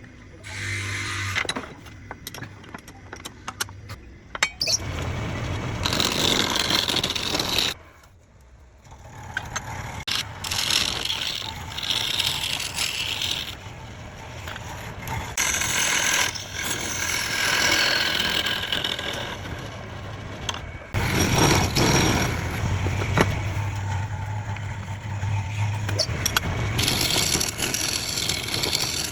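Wood lathe running with a low motor hum while turning tools scrape and cut the spinning wood. The sound drops away briefly about eight seconds in.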